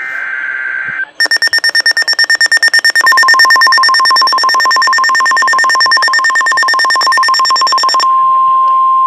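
End of an Emergency Alert System SAME header data burst, a short warbling tone. Then a rapid electronic beeping alarm, about eight beeps a second. About three seconds in, NOAA Weather Radio's steady 1050 Hz warning alert tone starts under the beeping, and it sounds alone after the beeping stops near the end.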